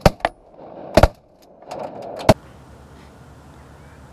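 Shotgun fired from a duck blind: about four sharp, loud shots in the first two and a half seconds, the loudest about a second in. A steady low hiss follows.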